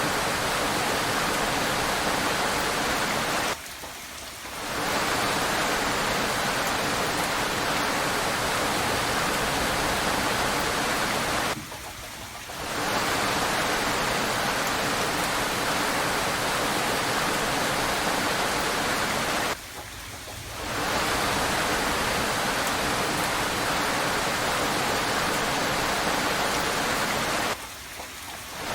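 Steady rain, an even hiss, that drops away sharply four times, about every eight seconds, for roughly a second before fading back in.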